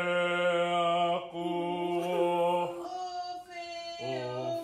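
A put-on deep voice holding long sung or chanted notes: two long steady tones, then a lower held note near the end.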